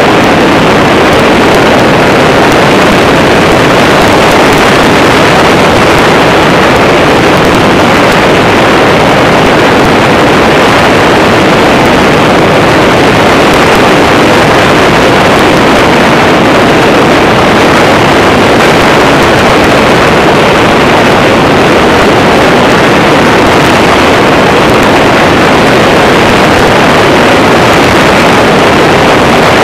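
Loud, steady drone of a weight-shift trike microlight in flight: engine and propeller running at a constant setting, mixed with wind noise on the onboard microphone.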